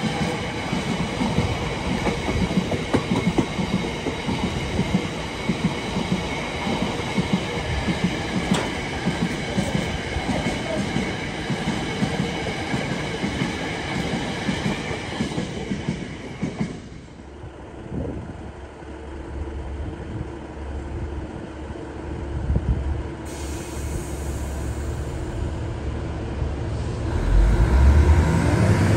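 A freight train of container flat wagons runs past with rhythmic clickety-clack over the rail joints and a high ringing wheel squeal, until the last wagon clears a little over halfway through. Then a Class 66 diesel locomotive's low engine rumble grows steadily louder as it approaches on the other line.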